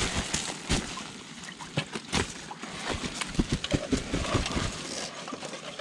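Woven plastic sack rustling and crackling as hands work it, with many irregular clicks.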